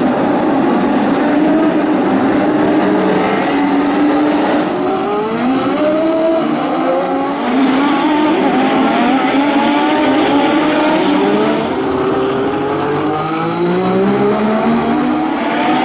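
Engines of historic Formula One cars racing, several at once. Each engine rises in pitch as it accelerates and drops back at each upshift, again and again, with the cars overlapping one after another.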